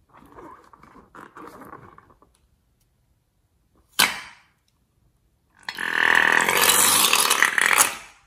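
Rubber balloon squeaking and rubbing as hands squeeze it, then one sharp snip about four seconds in as scissors cut its neck. About a second and a half later, glue and air are squeezed out of the cut balloon in a loud rush lasting about two and a half seconds.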